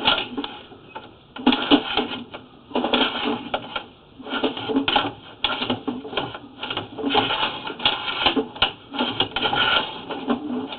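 Drain-cleaning machine running a spinning cable down a clay sewer line, rattling and clattering in irregular bursts as it cuts through tree roots.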